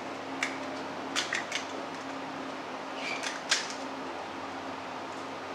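A metal spoon clinks lightly against a glass mixing bowl a few times, in small clusters, as filling is scooped into hollow puris. A steady low hum runs underneath.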